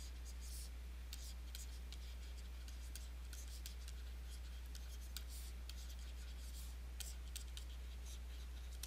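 Stylus scratching and tapping on a pen tablet as handwriting is written, in quick irregular strokes, over a steady low electrical hum.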